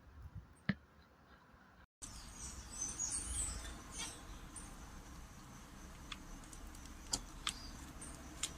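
Zebra finches calling with short, high chirps, mostly in a cluster about three seconds in, with a few sharp clicks near the end.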